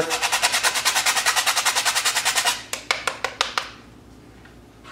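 Whole nutmeg rasped across the fine punched side of a metal box grater: a fast, even run of scratchy clicks, slowing to a few separate scrapes and stopping after about three and a half seconds.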